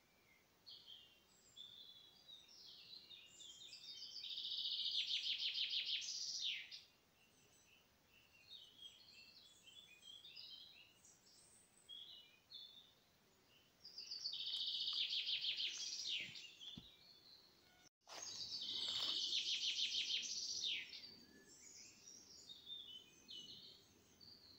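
Small songbirds singing: three loud, rapid, high trilled songs, each about two seconds long, with short scattered chirps between them.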